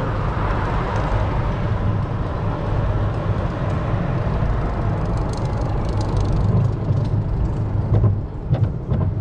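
Gerstlauer bobsled roller coaster train running along its steel track: a steady low rumble from the wheels, with a few sharp rattles near the end.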